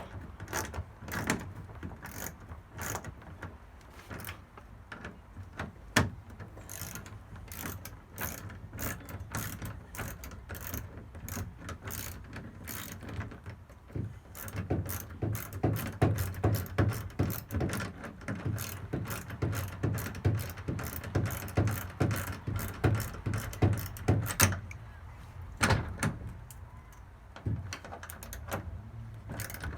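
Ratchet wrench clicking in runs as a bolt on a garage door roller bracket is tightened, the clicks coming fastest and most steadily about halfway through and thinning out near the end.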